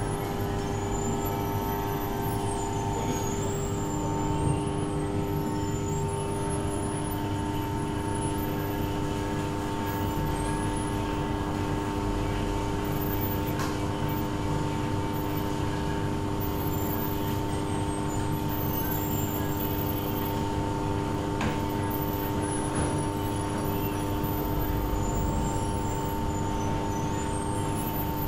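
A steady mechanical hum: a low rumble with several held tones that stays even throughout.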